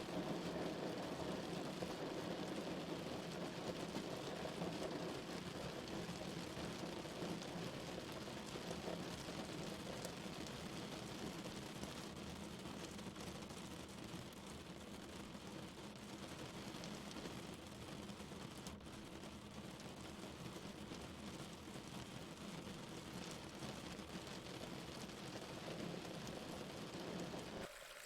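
Steady heavy rain falling, with a low rumble of distant thunder underneath that is strongest at first and slowly dies away.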